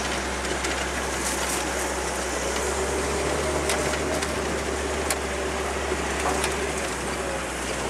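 Engine and road noise of an open-topped off-road vehicle driving along a rough dirt track, heard from on board: a steady run with scattered short rattles and knocks.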